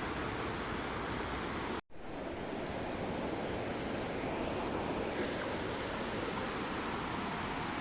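Steady rush of flowing river water, which cuts out completely for a moment about two seconds in.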